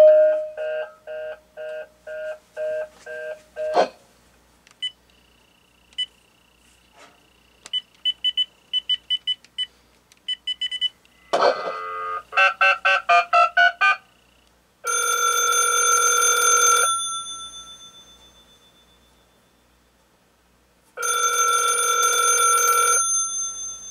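Series of short electronic beeps from the Uniden 900 MHz cordless handset as a number is keyed in, followed by a telephone ringing twice, each ring about two seconds long with about four seconds between them, as the outgoing call goes through.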